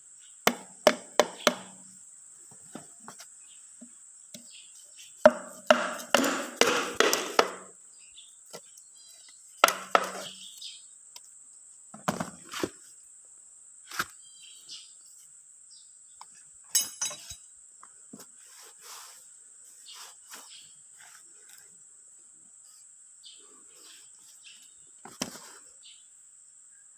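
Piston being tapped down through a ring compressor into the cylinder bore of a Perkins diesel engine block with a wooden bar: sharp knocks, three single strikes near the start, then a quick run of them about five seconds in and a few more after.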